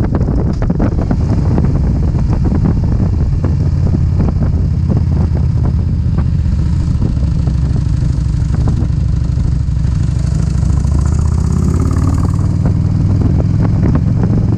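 Motorcycle engine running steadily on the road, with wind buffeting the microphone in short gusts. A whine rises and falls in pitch about ten seconds in.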